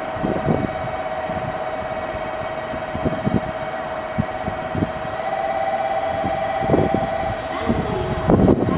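An electric train approaching along the line toward a station platform, heard as a steady mid-pitched hum with scattered low thumps.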